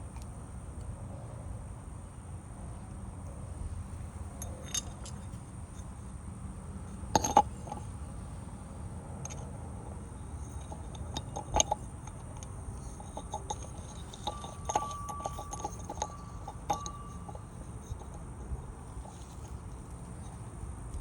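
Small hard parts of a sprinkler backflow preventer being handled during a bonnet and poppet repair: scattered clicks and clinks, with two louder knocks, one about seven seconds in and one about eleven and a half seconds in, and a quick run of clicks past the middle. A thin steady tone sounds for about two seconds in the middle of that run.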